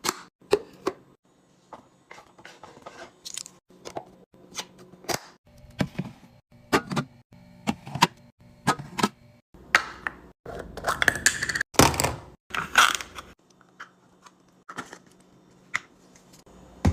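Items being handled and set into a mini fridge while it is restocked: a string of sharp clacks and knocks, with a few seconds of louder crinkling and rustling from packaging a little past the middle.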